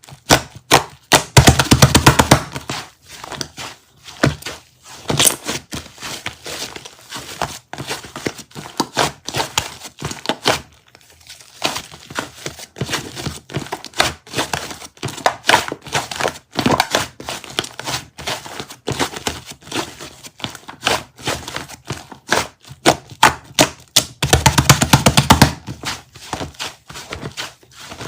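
Rapid, irregular clicks and taps, crowding into dense flurries about two seconds in and again near the end.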